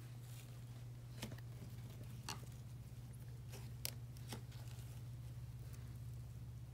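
Fluffy shaving-cream slime being kneaded and stretched by hand, giving a handful of faint sticky clicks and pops. A steady low hum runs underneath.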